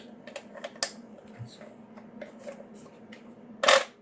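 The gear train of a Nelson tractor-style travelling sprinkler clicking as it is turned by hand: scattered small clicks, then one louder clack near the end. The mechanism is loose and the gear is not happy in there, a sign of the stripped gear teeth it is being taken apart to fix.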